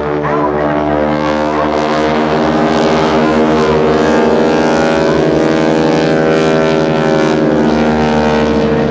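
Boeing Stearman biplanes' radial engines and propellers droning in formation flight, growing louder over the first few seconds and then holding steady.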